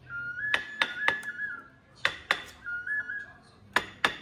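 A high whistle-like tune of a few held notes stepping up and down, played in two short phrases, over sharp knocks that come at uneven intervals.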